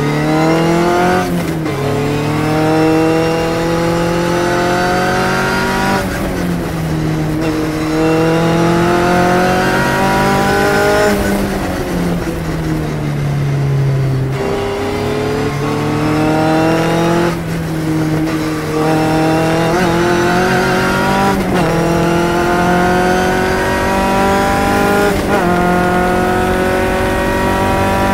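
Phantom S21 sports racing car's engine heard onboard at racing speed: its note climbs steadily through each gear and drops sharply at each upshift, several times over. About a third of the way through the pitch winds down for some three seconds as the car slows for a corner, then climbs again.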